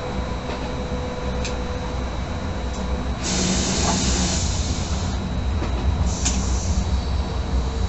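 Stadler FLIRT electric multiple unit running along the line, heard from inside the driver's cab: a steady low rumble. From about three seconds in a loud hissing rush lasts under two seconds, and a shorter one comes about six seconds in.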